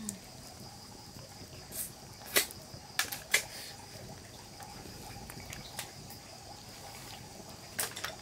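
A steady high insect drone runs throughout. Sharp knocks and clicks sound at irregular intervals over it, the loudest a little over two seconds in and twice around three seconds in.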